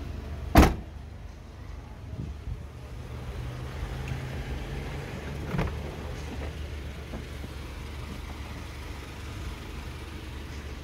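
A car door slams shut once, loudly, about half a second in, then a lighter click comes about halfway through, over a steady low rumble.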